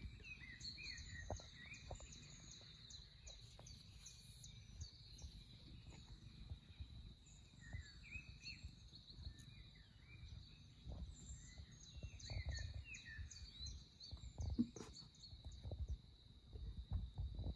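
Faint bird chirps and calls from a nature video playing for cats on a screen, over a steady high whine and a low rumble. Soft knocks are scattered through it, and the loudest thump comes about fifteen seconds in.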